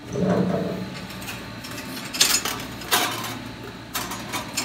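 A thin stainless steel sheet with small metal clamps on its edges being handled and set down on the steel slats of a fiber laser cutter bed. A duller rattle at first, then several sharp metallic clicks and clinks over a low steady hum.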